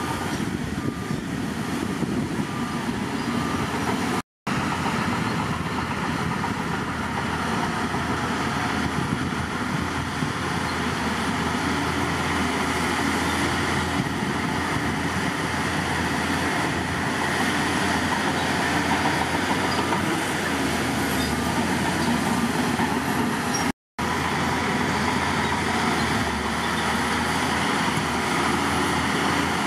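Heavy diesel earthmoving machinery running steadily under load. The sound cuts out for an instant twice, about four seconds in and again about twenty-four seconds in.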